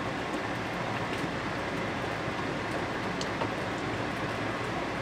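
Steady rushing hiss of kitchen background noise, with a few faint ticks.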